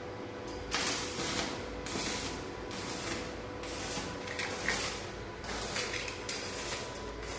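Metalworking on a stainless-steel railing: repeated short bursts of hissing, crackling noise, each about half a second to a second long, over a faint steady hum.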